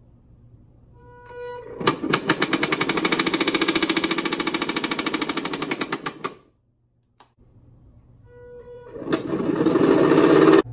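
Salvaged printer DC motor driven by PWM, spinning the launcher's 3D-printed anvil: a thin whine as the power comes on, then a loud, fast, even rattle as it ramps up. It runs twice, the first run stopping a little past halfway and the second building toward the end.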